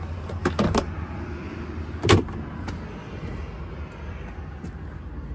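Steady low hum of the truck's 6.7 Cummins diesel running, with a few clicks about half a second in and one loud knock about two seconds in.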